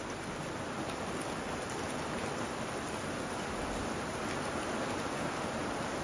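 Steady rain falling: an even, unbroken rushing noise.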